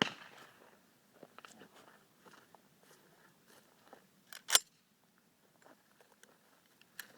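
A few sharp clicks and knocks, one at the start and a louder one about four and a half seconds in, with faint crunching and small clicks between them.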